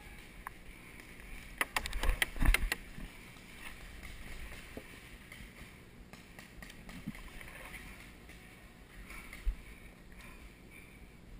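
A quick burst of about eight sharp paintball shots a little under two seconds in, followed by a single pop near the end, over a quiet steady background.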